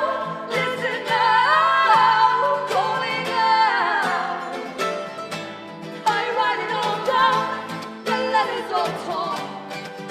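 Live acoustic music: voices singing melodic lines over strummed acoustic guitar, with the strokes of the strumming running steadily through it.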